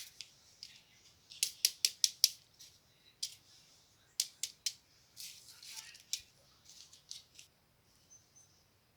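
Hand crafting sounds: sharp snips and clicks with short rustling scrapes, such as scissors and paper or plastic being handled. A quick run of five clicks comes about one and a half seconds in, three more near the middle, then softer scattered ticks.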